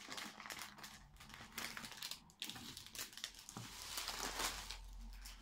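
Packing wrap crinkling and rustling in irregular bursts as it is pulled off the doll's hands.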